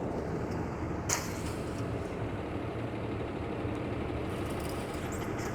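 Steady low rumble of street traffic, with a single brief click about a second in.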